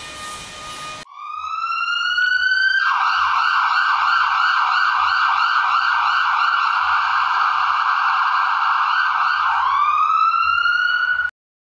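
Electronic emergency-vehicle siren: a rising wail, then a fast warbling yelp for several seconds, then another rising wail. It cuts off abruptly near the end.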